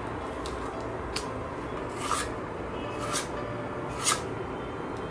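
Metal palette knife scraping white texture paste across a plastic stencil on an MDF board: about five short scrapes, roughly one a second, the loudest about four seconds in, over a steady low background hum.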